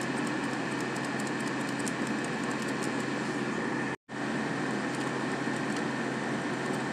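Steady background hum and hiss with faint ticks in the first few seconds; the sound cuts out completely for a split second about four seconds in.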